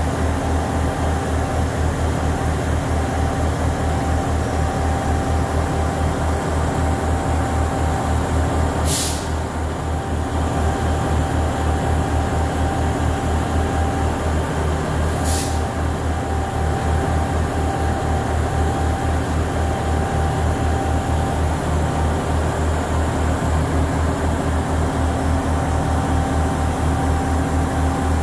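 Class 158 diesel multiple unit standing with its underfloor diesel engines idling: a steady, evenly pulsing low rumble with a faint whine over it. Two short, sharp hisses come about nine seconds in and again six seconds later.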